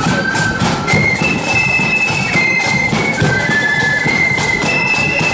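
Marching flute band playing a tune, the flutes carrying a high melody in held notes over the beat of the band's drums.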